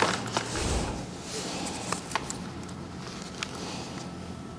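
Quiet handling noise: a few light, sharp clicks and small rustles as a plastic blade fuse and multimeter test probes are handled.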